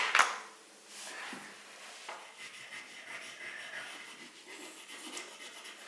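Faint rubbing and a few small clicks of wax crayons: a child picking through a plastic tub of crayons and rubbing a crayon across paper.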